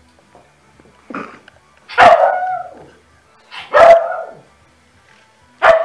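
A dog barking four times, a second and a half to two seconds apart; the second and third barks are the loudest.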